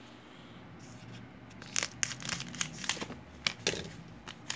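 Trading-card pack wrapper crinkling and tearing as the pack is opened: a quiet start, then a quick run of sharp crackles from under two seconds in.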